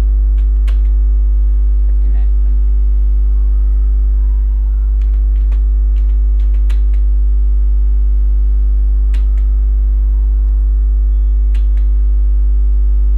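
Loud, steady electrical mains hum with a stack of harmonics, with about eight sharp computer keyboard and mouse clicks scattered through it as drawing commands are entered.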